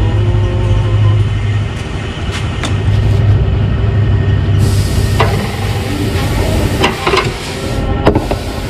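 SsangYong Stavic engine running at a steady idle, heard close at its accessory belt drive and tensioner. A few sharp clicks come through in the second half.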